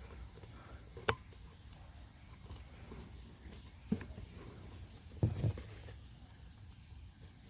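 A few light clicks and knocks from the hard plastic parts of a Kärcher KB5 sweeper being handled: one about a second in, one near four seconds, and a double knock a little after five seconds.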